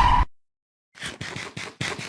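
A loud noisy sound with a steady high tone cuts off abruptly a quarter second in; after a short gap, a quick run of short scratching strokes, several a second, starts about a second in.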